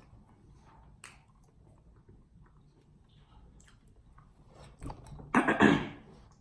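Quiet chewing of a buttercream-frosted cupcake with faint wet mouth clicks, then a short, loud, noisy mouth sound a little after five seconds in.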